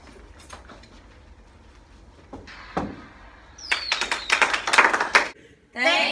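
People moving about a classroom: scattered light knocks and footsteps, then about a second and a half of dense clattering, broken off abruptly.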